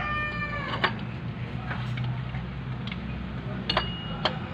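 A few sharp, scattered metal clicks of a wrench working the water-pump pulley bolts on a diesel engine. The falling end of a rooster's crow fades out during the first second.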